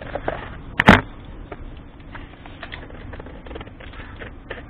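Metal parts and tools being handled on an old Royal Enfield Bullet engine's cylinder head. There is one loud clank about a second in, then scattered light clicks and taps.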